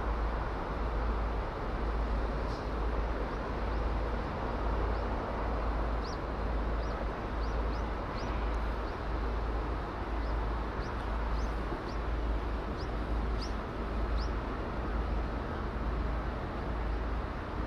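A small bird gives a string of short, high chirps, more than a dozen, starting a couple of seconds in and stopping a few seconds before the end. Underneath is a steady low rumble and hiss of outdoor background noise.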